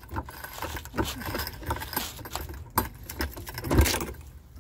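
Hydraulic floor jack being pumped, lifting a car: a run of irregular metallic clanks and clicks, with the loudest knock near the end.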